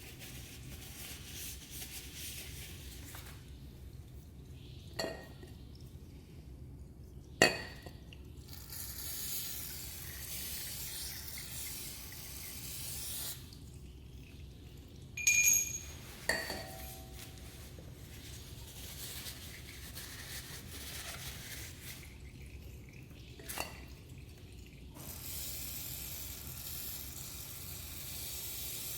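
Metal tools and parts clinking several times, one strike ringing briefly, during motorcycle oil-change work, with two long stretches of steady hissing like a spray or liquid running.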